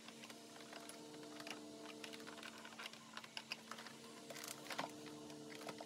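Light, irregular plastic clicks and taps as a screwdriver and gloved hands pry at and handle the plastic housing of a Zelmer Cobra 2010 vacuum cleaner during disassembly, with a faint steady hum underneath.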